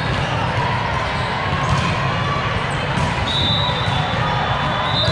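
Busy volleyball hall ambience: balls thumping and bouncing on the courts with a background murmur of voices, echoing in the large hall. A high steady tone sounds for about a second a little past the middle.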